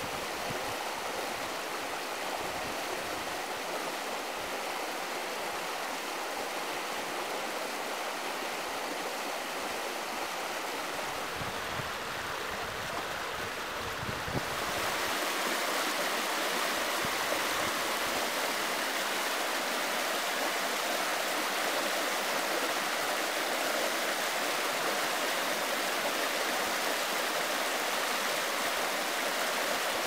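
Shallow stream rushing and splashing over rocks, a steady unbroken water noise. About halfway through it becomes louder and brighter, the white water nearer.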